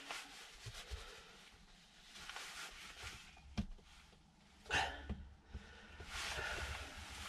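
Hands wiping excess adhesive off a VW New Beetle's plastic door mirror casing and handling it: soft rubbing and scuffing, with two light knocks in the middle.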